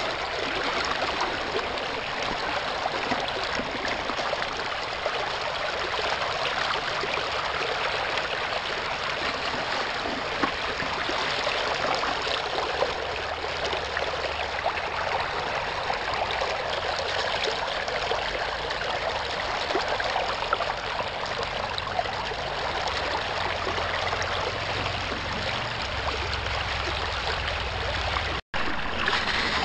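Steady rush of creek water running through a Gold Hog sampling sluice and over its riffles. The sound cuts out for an instant about a second before the end.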